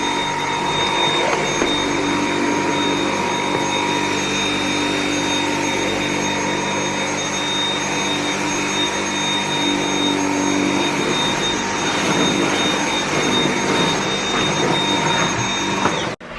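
Dyson V7 Motorhead cordless stick vacuum running steadily, a rush of air with a steady high-pitched whine, cutting off suddenly near the end.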